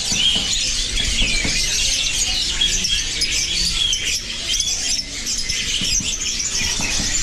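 A noisy chorus of many caged songbirds chirping and whistling at once, short overlapping calls without a break.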